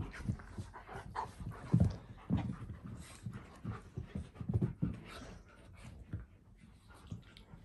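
A giant husky and a golden retriever puppy play-wrestling, with heavy panting and scuffling in irregular low pulses, loudest a little under two seconds in.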